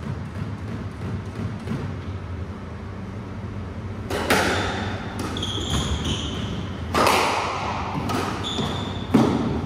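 Squash rally: several sharp cracks of the ball off rackets and walls from about four seconds in, with short high squeaks of shoes on the wooden floor between them. Before the rally starts there is only a low steady hum.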